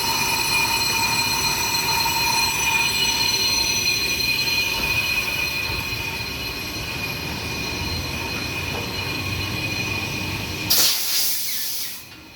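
Brake lathe skimming a brake drum: the cutting tool on the turning metal gives a steady high metallic squeal made of several ringing tones. About eleven seconds in there is a short loud hiss, and then the sound drops away sharply.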